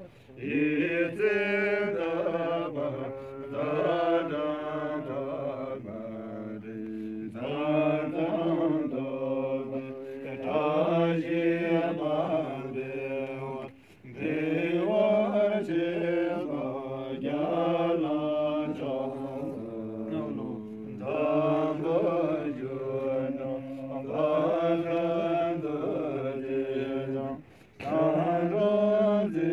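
Tibetan Buddhist monks of the Drukpa lineage chanting prayers from their texts, in long, evenly pitched phrases with brief breaks for breath about halfway and near the end.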